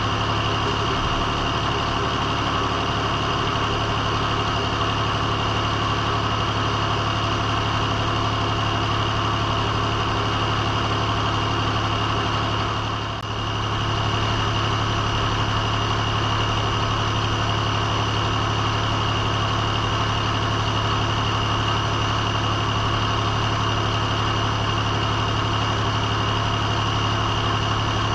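An engine-driven circle sawmill running steadily at a constant speed, with a steady high whine over the engine's drone and a brief dip about halfway through.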